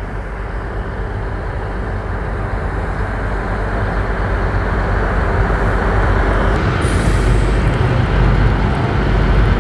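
Tugboat diesel engines running: a steady low drone with a faint constant hum, growing steadily louder as the tug draws nearer.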